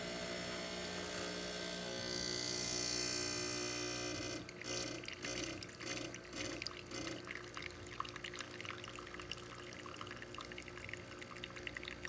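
A Bezzera espresso machine pulling a shot. The pump hums steadily, with a hiss for the first four seconds or so. From about four seconds in, espresso trickles and drips into the cup as irregular small patters over the pump hum.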